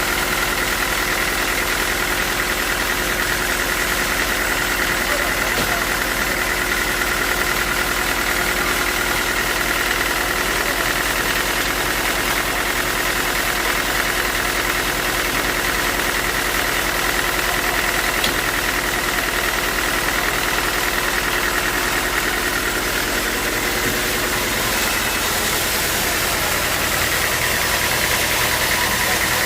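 Sawmill machinery running steadily with a constant engine-like drone and a steady high hum over it.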